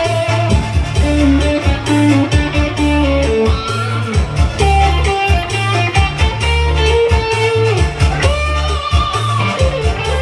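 Live band playing a Khmer cha-cha-cha: a guitar melody over steady bass notes and an even drum beat.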